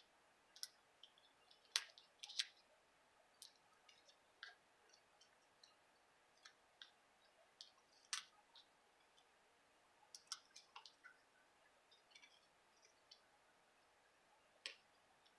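Faint, irregular small clicks and taps of paper crafting: foam adhesive Dimensionals peeled from their backing sheet and a paper oval label pressed onto a card.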